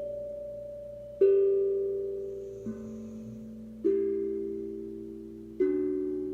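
Steel tongue drum played slowly, one soft-attacked note every second or two, with four notes struck in turn. Each note rings on and slowly fades under the next.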